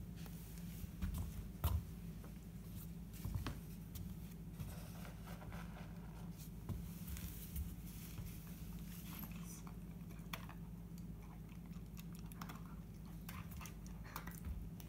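Scattered clicks, taps and rustles as a nylon dog harness is fitted onto a dog: straps and buckles being handled and the dog's claws shifting on a hardwood floor, with a couple of louder knocks in the first few seconds. A low steady hum runs underneath.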